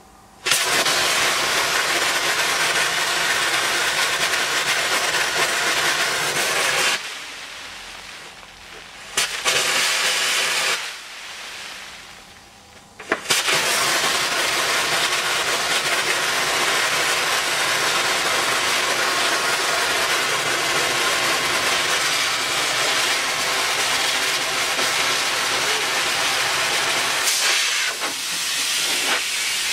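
Sandblasting gun firing abrasive with compressed air onto a bare steel moped frame: a loud, steady hiss that starts about half a second in. It stops twice for a few seconds with a short blast in between, then runs on steadily.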